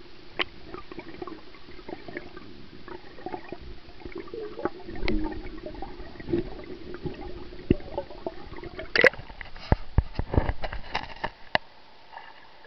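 Water gurgling and sloshing around a handheld camera in a shallow rock pool, with scattered small clicks and knocks. A cluster of louder sharp knocks and splashes comes in the later part, then stops abruptly.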